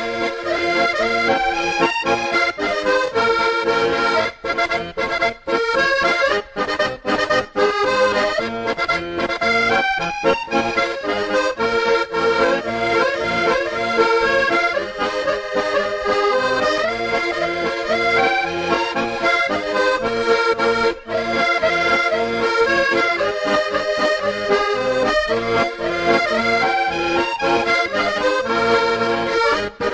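Instrumental accordion music: a sea-shanty tune played on accordion, with no singing.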